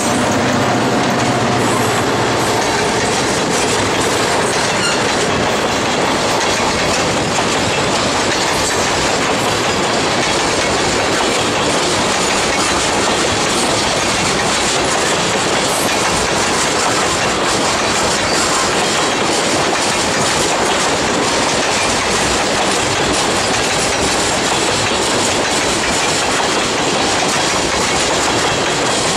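A long string of railway tank cars of a CP freight train rolling steadily past, wheels clacking and rumbling on the rails with a little wheel squeal. In the first couple of seconds the hum of the just-passed diesel locomotives fades out under the rolling noise.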